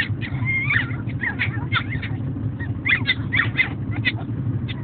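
Chihuahua puppies fussing: a run of short, high-pitched whines and yelps, many in quick clusters, over a steady low rumble.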